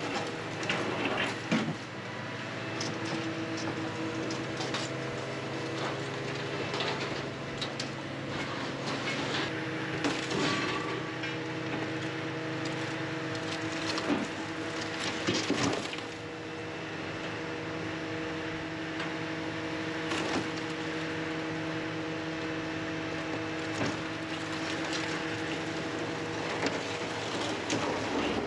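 Scrap material handler's diesel engine and hydraulics running steadily while its grapple pulls scrap metal off a wooden-decked trailer, with scattered clanks and scrapes of metal on metal.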